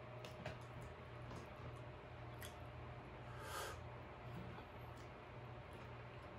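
Faint wet handling of king crab meat with the fingers, with a few soft clicks and one louder wet squish about three and a half seconds in as the meat is dipped into a thick sauce.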